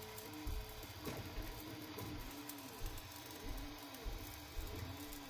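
Bambu Lab A1 3D printer's stepper motors whining during a print, in tones that jump between pitches and swoop up and down with each move, over repeated low thuds.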